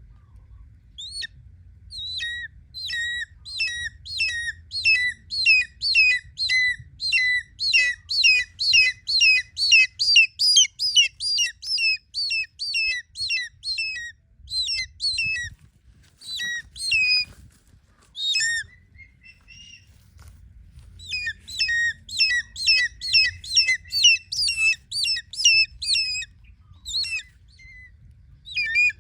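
Changeable hawk-eagle calling: a long run of shrill, repeated calls, about three a second, then a few scattered calls and a second run near the end.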